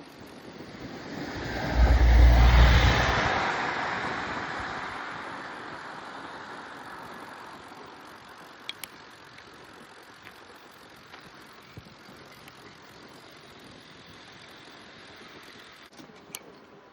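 A car passing close by, swelling to its loudest about two seconds in with a brief low rumble, then fading away over several seconds.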